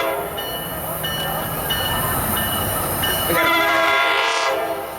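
Tri-Rail BL36PH diesel locomotive sounding its horn: a blast ending just after the start, then a second blast about three seconds in lasting over a second, with the train running in between.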